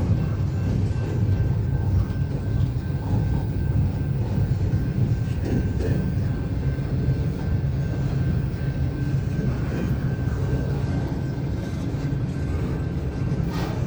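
Intermodal freight train cars rolling slowly past, a steady low rumble with a faint thin high whine held throughout.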